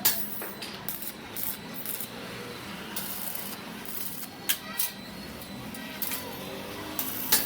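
Metalworking on iron parts: a few sharp metallic clicks and knocks, one at the start, one midway and one near the end, with smaller ticks over a steady low hiss.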